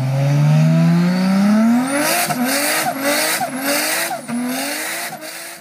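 Car engine sound effect accelerating hard: the pitch climbs steadily for about two seconds, then runs through a quick string of short rising revs with tyres screeching, and cuts off abruptly near the end.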